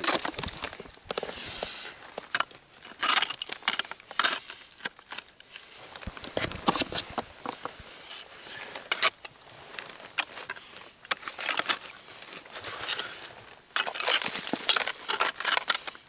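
Ice axe picks, and crampon points kicked in, striking a frozen waterfall: irregular sharp crunching impacts in clusters, with ice crackling and breaking away.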